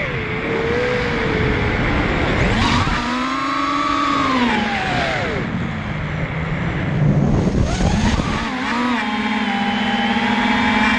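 FPV quadcopter motors whining, the pitch swinging with the throttle. The pitch climbs about two and a half seconds in, falls away around five seconds, then rises again near eight and a half seconds and holds fairly steady with a slight warble.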